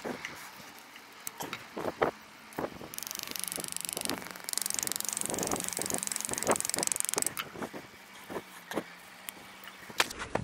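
Desiccant beads from a double-glazing aluminium spacer bar trickling into a plastic bowl, a dense rattling hiss for about four seconds in the middle, among scattered clicks and taps of the metal bar and a knife.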